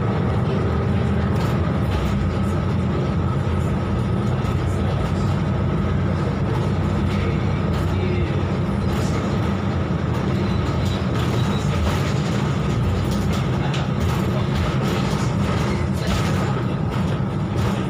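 Volvo B12BLE city bus heard from inside the cabin while driving: steady diesel engine and road rumble with a faint steady whine.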